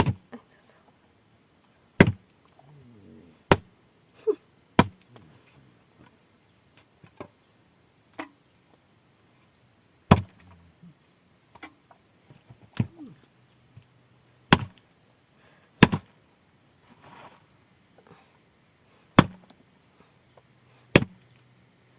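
Sharp chopping strikes, about ten of them at uneven spacing from one to several seconds apart, over a steady high-pitched drone of insects.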